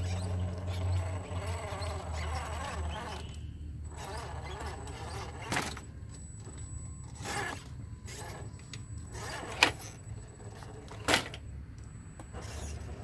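Electric motor and gears of an RC4WD Toyota Hilux scale rock crawler whining at crawl speed as it works over rocks. Three sharp clicks break in, the loudest two in the second half.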